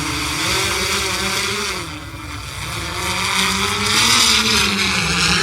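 Quadcopter drone's propellers buzzing in flight as it climbs, the pitch wavering up and down. The sound fades a little about two seconds in, then grows louder again.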